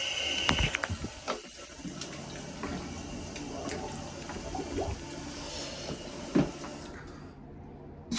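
Water running and splashing, with a few short knocks, the sharpest about six seconds in.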